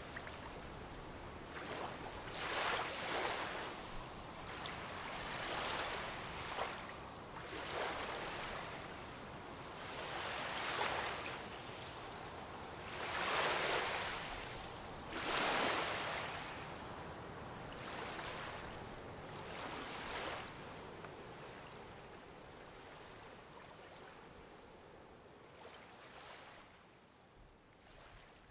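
Small waves washing onto a sandy beach, the surf swelling every two to three seconds, then fading away over the last several seconds.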